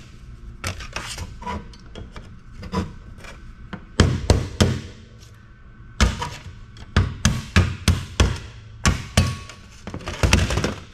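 Hammer driving a chisel against the legs of a transformer on a circuit board, knocking them off: sharp metallic strikes in quick bursts of several blows, about a dozen in all, with lighter taps and scraping between.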